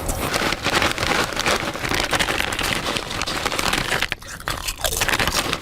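A crinkly snack bag of chips being rustled loudly, with crunching as the chips are eaten, deliberately noisy.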